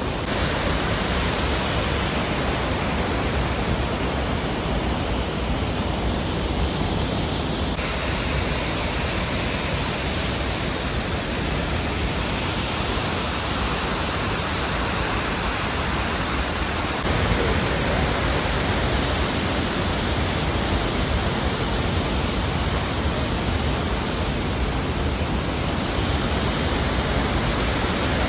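Waterfall pouring: a loud, steady rush of water whose tone shifts slightly twice, about 8 and 17 seconds in.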